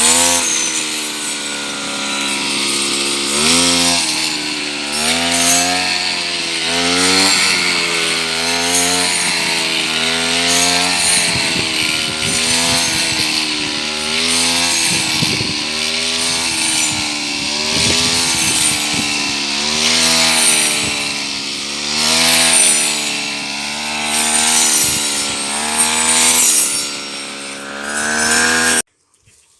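Background music: a melody with wavering vibrato over changing bass notes, cutting off abruptly just before the end.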